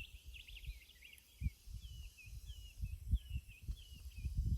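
Small birds chirping: a steady string of short, high, repeated calls. Irregular low thumps sound underneath.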